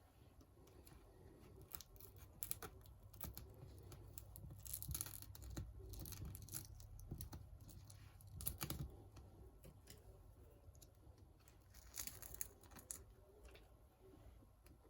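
Faint, irregular scratching and clicking of a tool scraping broken digitizer glass and adhesive off an iPad 7th gen's frame, with a few louder bursts of scraping.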